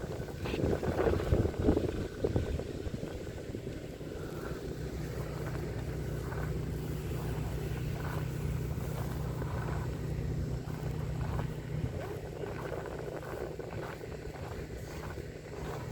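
Wind buffeting the microphone for the first few seconds, then an engine running steadily at one constant low pitch.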